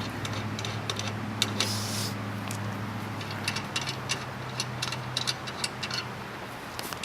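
Metal clicking and clinking of a wrench undoing the nuts that hold a spare tire in its carrier, in irregular clusters over a steady low hum.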